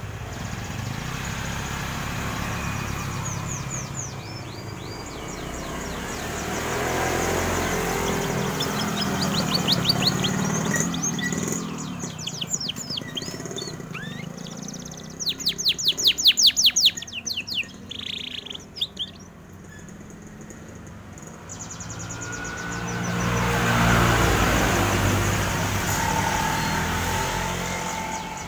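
Domestic canary singing in bursts of fast, rapidly repeated high trills and chattering notes, the loudest run a little past the middle. Passing road traffic swells and fades twice underneath.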